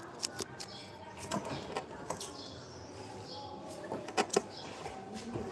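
Scattered light knocks and clicks of hand work with tools and materials on the scaffolding, several close together about four seconds in.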